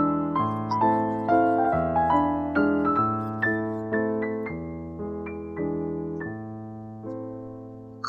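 Background piano music: slow chords, each note left to ring, over a bass that changes every second or so, growing gradually softer.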